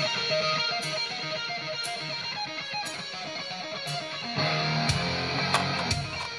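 Guitar-led music with a regular beat, played back through a McIntosh car audio system (head unit, environmental equalizer and MC420 power amplifier). The sound grows fuller and denser about four seconds in.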